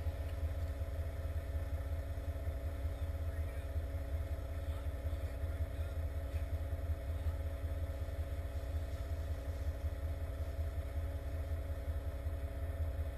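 Heavy truck engine idling steadily, a low, even rumble.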